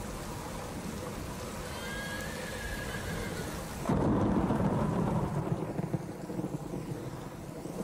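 Steady heavy rain, with a sudden clap of thunder about four seconds in that rumbles away over the next two seconds.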